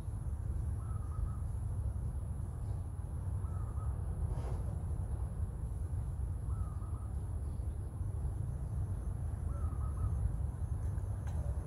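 Short faint animal calls, one about every three seconds, four in all, over a steady low rumble.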